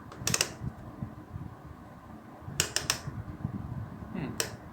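Sharp clicks of a plastic rotary switch being turned through its detents: one just after the start, a quick run of three about two and a half seconds in, and one more near the end, with light handling noise in between.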